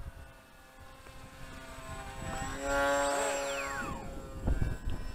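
A radio-controlled model airplane's motor and propeller flying past: a droning whine that builds to its loudest about three seconds in, then drops in pitch and fades as it passes. A few low thumps near the end.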